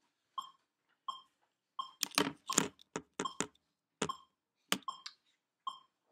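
Electronic metronome beeping steadily, one short beep about every three-quarters of a second. From about two seconds in, several loud knocks and rustles close to the microphone sound over it for about three seconds.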